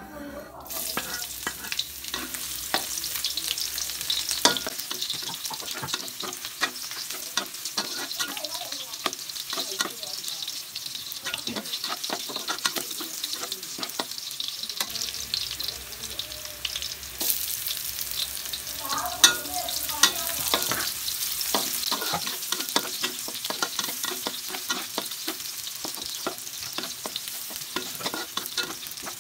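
Chopped garlic and onion hitting hot oil in a wok and sizzling, the sizzle starting about a second in. A metal spatula stirs through it, with frequent clicks, taps and scrapes against the wok.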